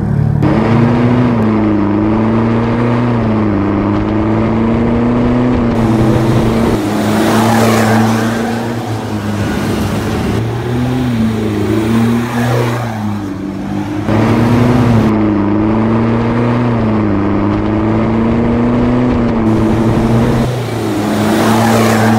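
Ford Ranger Raptor's 2.0-litre bi-turbo diesel running through an aftermarket turbo-back exhaust, a low steady rumble that rises and falls slightly as the truck drives. Three times it swells into a rush of exhaust and tyre noise as the truck passes close by.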